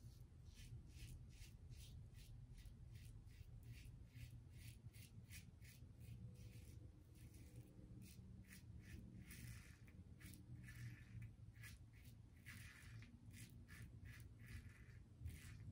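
Safety razor blade scraping through lathered stubble on the neck in quick short strokes, about three faint rasps a second, coming thicker and louder about halfway through.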